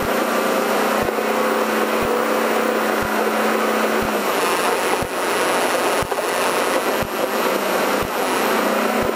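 Off-road race vehicle's engine running under way, with loud road and wind noise filling the open caged cab. A steady low hum drops away about four seconds in and returns near the end.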